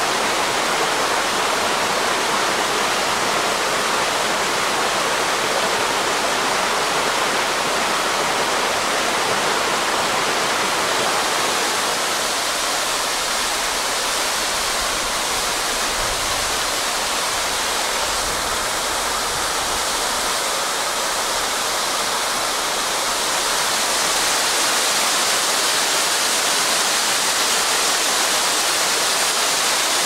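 Steady rush of a waterfall splashing down a rock face. It changes slightly in tone partway through and grows a little louder near the end.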